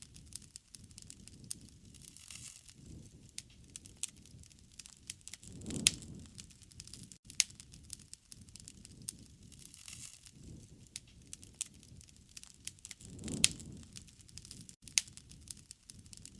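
Wood campfire crackling, with sharp pops scattered irregularly. Louder pops, each with a low rush, come about six seconds in and again about thirteen seconds in.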